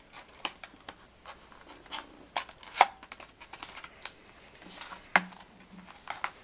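A small paperboard retail box handled and worked open by fingers: irregular scrapes, taps and clicks of card against card and skin, the sharpest click about three seconds in.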